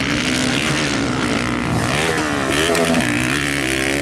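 Motocross dirt bike engines revving, the pitch rising and falling several times between about two and three and a half seconds in.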